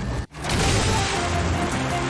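Background music, cutting out for a moment about a quarter of a second in and then carrying on.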